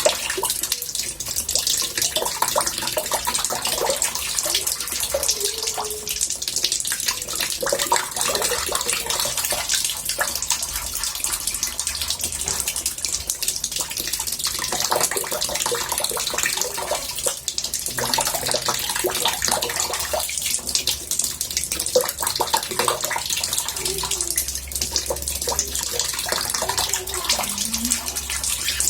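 Water running into a bathtub, a steady splashing rush with small bubbling gurgles throughout.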